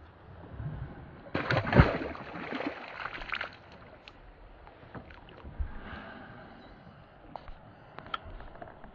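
Water splashing and sloshing at a small boat, loudest from about one and a half to three and a half seconds in, with a sharp knock near the start of that stretch, then scattered light knocks and clicks.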